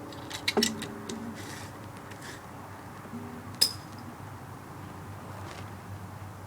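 A plucked string instrument, guitar or ukulele type, strummed once with a short ringing chord just under a second in and touched again more weakly around three seconds in, amid light clicks and taps, with one sharp clink that rings briefly about three and a half seconds in.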